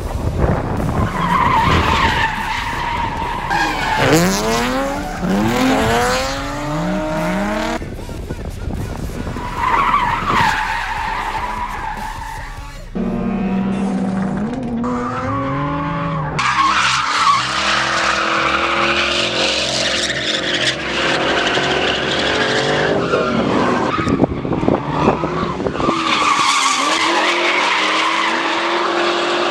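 Drift cars sliding through corners: engines revving up and down with tyres screeching, in several clips cut together.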